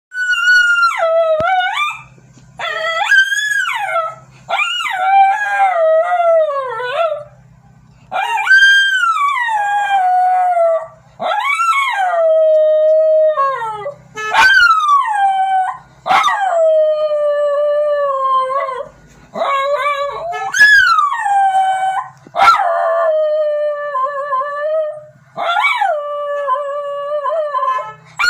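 Dog howling in answer to a horn: about ten long howls in a row, each starting high and sliding down in pitch, with short breaths between.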